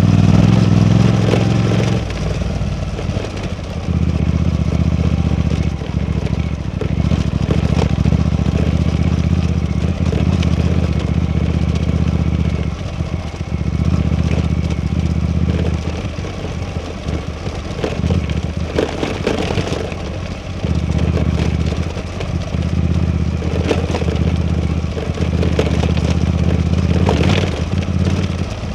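Suzuki V-Strom 800DE's parallel-twin engine running under way on the road, a steady low engine note that dips briefly several times and comes back.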